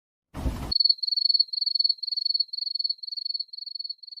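A cricket chirping sound effect: a high, trilled chirp repeating about twice a second and slowly fading. It opens with a brief burst of noise.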